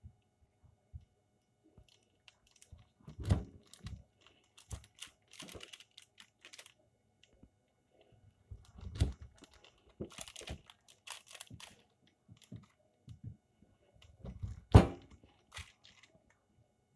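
A large kitchen knife cutting through a slab of peanut-and-sesame brittle that is still warm and not fully set. There are scattered crunches and crisp rustles of the parchment paper, and three louder knocks of the blade.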